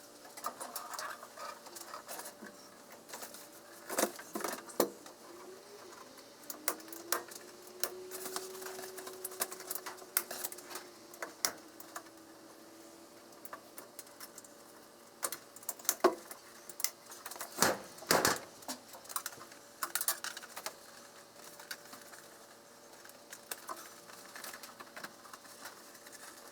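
Irregular clicks, taps and clatter of small hard parts and hand tools being handled, louder for a few knocks about 4 seconds in and again around 16 to 18 seconds.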